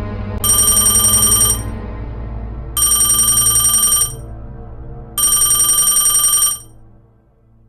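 Telephone bell ringing three times, each ring a rapid trill about a second and a half long, with about a second of pause between rings. Low background music plays underneath and fades out near the end.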